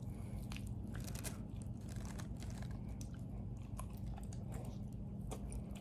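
A person chewing and gnawing on a tender pig's trotter close to the microphone: scattered small wet clicks and crunches, over a steady low hum.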